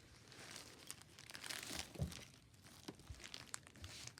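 Faint crinkling and rustling of plastic and paper packaging as small wrapped items are handled, with a few light taps.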